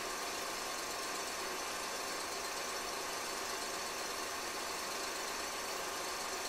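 Steady engine noise of Detroit, Toledo & Ironton diesel locomotives moving slowly, even and unchanging throughout, with a strong hiss.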